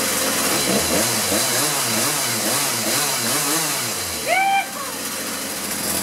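Poulan Pro 40cc two-stroke chainsaw engine idling on the bench, its note wavering up and down about two to three times a second. A short higher-pitched whine comes about four seconds in.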